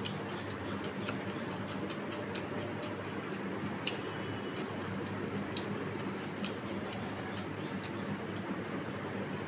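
Eating by hand: fingers mixing rice and curry on a metal plate, along with chewing, heard as scattered small clicks at irregular spacing over a steady low background hum.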